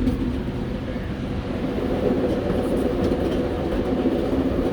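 A steady low rumble with a faint hum, growing slightly about two seconds in.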